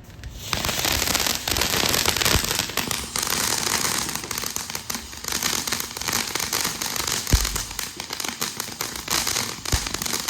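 Lit consumer firework burning: a continuous dense crackling and hissing of rapid pops, starting about half a second in, with two louder thumps in the second half.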